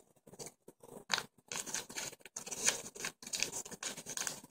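Small plastic bag rustling and crinkling as it is handled, in irregular scratchy bursts that become almost continuous after about a second and a half.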